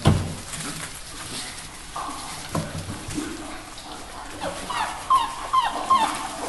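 Puppies whimpering and yipping in play, with a run of about five short high cries, each falling in pitch, past the middle, over scuffling in wood shavings. A sharp thump comes right at the start.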